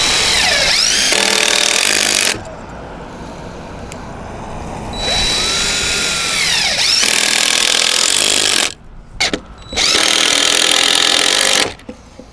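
Power drill running in three long runs, its motor pitch sagging and recovering under load, as when driving long screws into framing lumber, with a few short knocks between runs.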